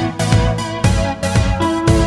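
Electronic background music with a steady beat, about two beats a second, under sustained synthesizer notes.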